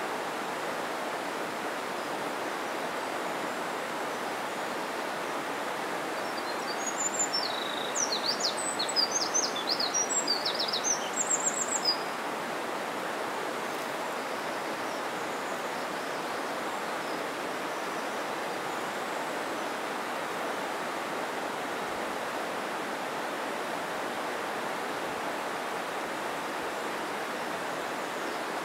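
Steady rush of a mountain stream's flowing water. A small bird sings a quick run of high chirps over it from about seven to twelve seconds in.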